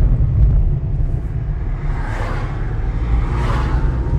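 Steady low rumble of a car moving slowly, with two brief swells of hiss.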